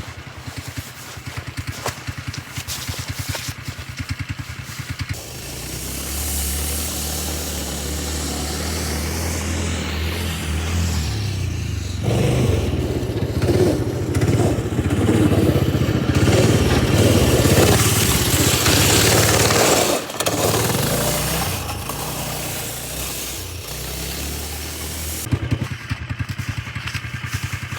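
Small 120 youth snowmobile engine idling, then pulling away and running at speed, getting louder toward the middle and fading back down to idle near the end, with a brief drop in sound about twenty seconds in.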